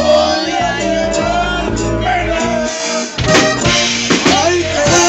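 Live norteño band music with men singing into a microphone over bass and drums.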